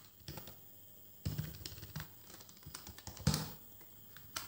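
Computer keyboard keys being typed in a few short bursts of keystrokes, the loudest burst about three seconds in.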